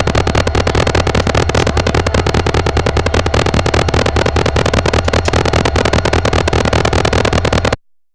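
Diesel engine of CSX locomotive 4402 running steadily close by with the train stopped: a loud, low rumble with a rapid even pulse. The sound cuts off abruptly near the end.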